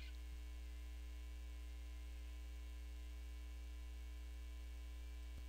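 Steady low electrical mains hum, unchanging, with no other sound over it.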